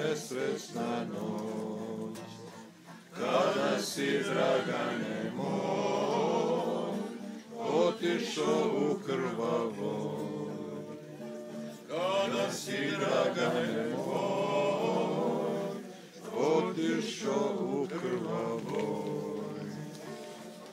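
Men singing together without instruments, in long phrases of a few seconds each with short breaks between them.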